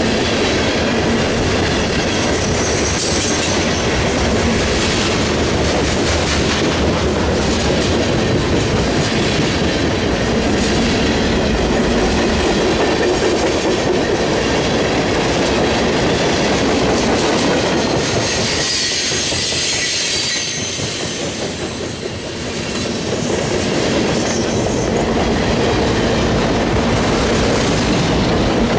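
Freight train of tank cars rolling past close by: a steady rumble and clatter of steel wheels on the rails, with a high, thin wheel squeal now and then. The noise dips briefly about three-quarters of the way through.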